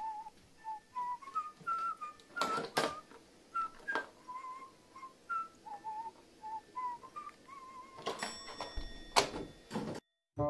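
Clacks and knocks from a white plastic wheel toy being pecked and turned by a carrion crow, with short wavering whistle-like squeaks repeated irregularly throughout; the loudest knock comes near the end.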